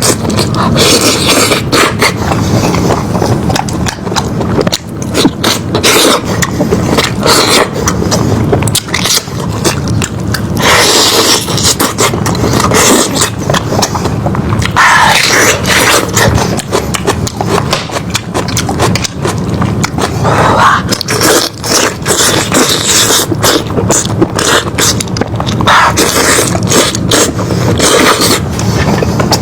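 Close-miked eating of a lamb head: biting and chewing on the meat, heard as a dense, loud run of clicks and smacks.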